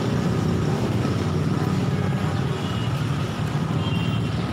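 Steady low rumble of outdoor city traffic noise, unbroken throughout.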